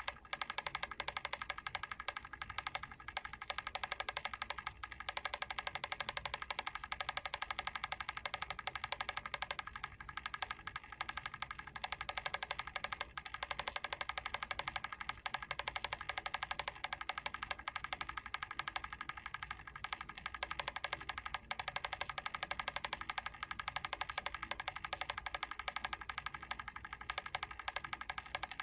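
Mechanical timer ticking rapidly and evenly, a steady stream of small sharp clicks.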